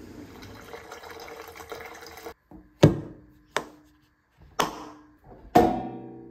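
Front-loading clothes dryer running steadily for about two seconds. Then a plastic robot-mop water tank knocks sharply against a stainless steel sink four times, the first knock loudest, each with a short ring.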